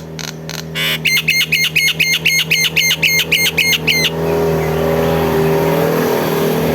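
Nias hill myna giving a rapid series of about fourteen sharp, even notes, some four a second, in its imitation of a kingfisher's rattling call. After about three seconds this gives way to a louder, steady motor noise over a low hum.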